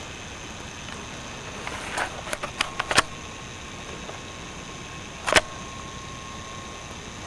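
Camcorder handling noise over steady hiss from the camera's own microphone. A quick run of clicks and knocks comes about two to three seconds in, and one louder knock a little past five seconds.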